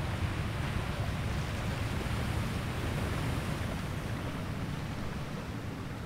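Muffled, low rushing of water moving in a tide pool, heard through a submerged camera; a steady wash with no distinct events.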